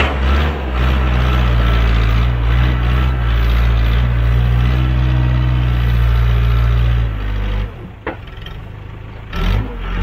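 Diesel engine of a working backhoe or compact tractor running loud and steady at high revs. It drops off for about two seconds near the end, then comes back.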